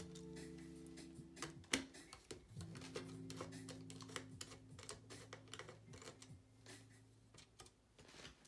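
Irregular small metallic clicks and ticks from a precision screwdriver turning screws out of the metal interior of an Apple Mac mini A1347, with one sharper click about two seconds in. Faint sustained background music plays underneath.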